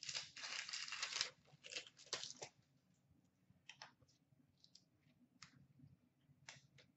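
Wrapper of a hockey card pack torn open and crinkled, most loudly in the first second or so, with a few more short rustles. After that, only faint flicks and slides as the cards are thumbed through.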